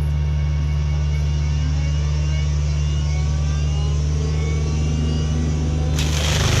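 Excavator diesel engine running steadily under load while powering a hydraulic mulcher head, with faint wavering whines above the drone. About six seconds in, a sudden burst of harsh grinding noise comes in.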